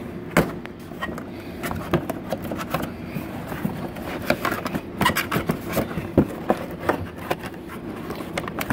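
Corrugated cardboard being bent and handled, with irregular creaks, crackles and scrapes and a few louder snaps as folded panel tabs are worked into slots.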